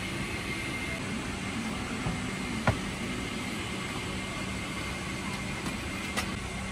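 Steady cabin noise inside a Boeing 777-300ER airliner, an even rush with a faint hum, broken by a sharp click about two and a half seconds in and a fainter one near the end.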